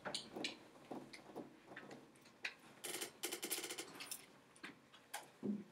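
Faint, irregular clicks and taps, with a short run of scratching about three seconds in: pencils writing and tapping on paper and desks while students work a problem.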